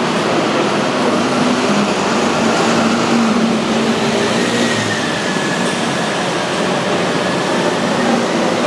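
Busy city street traffic: red double-decker buses running and passing close, their diesel engines humming under a steady din of road noise, with a faint high whine in the middle.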